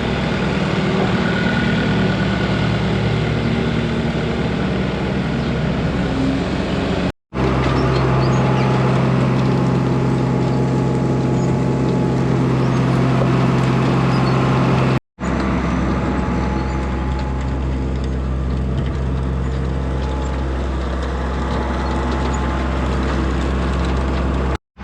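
Tractor engine running steadily, driving a Penta feed mixer wagon as it unloads feed along the bunk. The sound cuts out abruptly twice.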